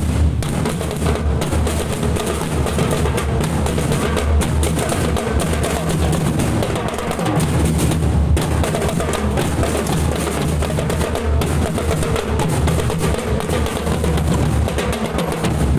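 Drum band percussion, marching bass drums and snare drums, playing continuously without a pause.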